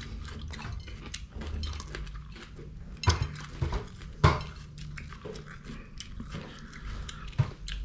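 Raw red bell pepper being chewed: a run of small crisp crunches and mouth clicks, with a few louder clicks about three, four and seven seconds in.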